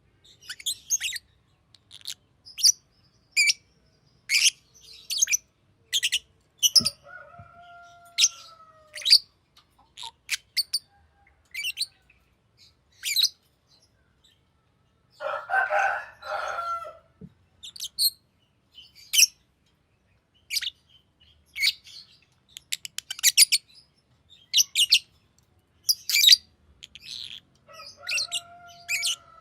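Green lovebird giving short, sharp, high-pitched chirps in irregular runs, about one or two a second, with a scratchy chattering burst of about two seconds midway through. A lower, falling whistle comes twice: about a quarter of the way in and again near the end.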